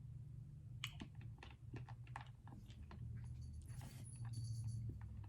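Faint wet mouth clicks and smacks from sucking on a hard coffee candy, scattered irregularly over a few seconds.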